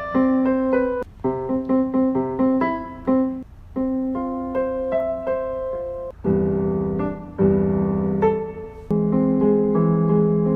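Solo piano playing a simple melody of single notes over a repeating low note, moving to fuller, lower chords about six seconds in: background music for a brand's videos.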